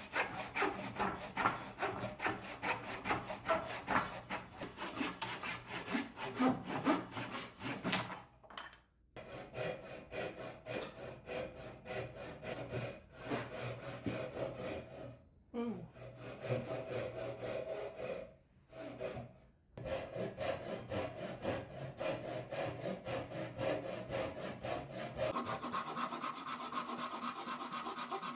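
Handsaw cutting through wood in rapid back-and-forth strokes, about three a second, broken by a few short pauses. Near the end the strokes turn smoother and higher-pitched.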